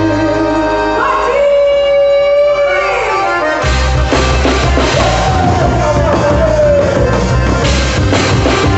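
Loud music for a quadrilha dance: a long held note slides down in pitch, then bass and drums come in about three and a half seconds in under a wavering melody.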